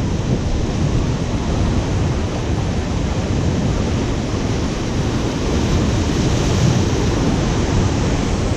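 Ocean surf breaking and washing over a rocky shore in a steady rush, with wind buffeting the microphone.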